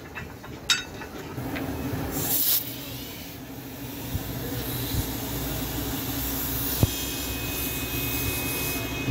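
A sharp metal clink, then a steady hiss of compressed air from an air hose at a truck tire's valve.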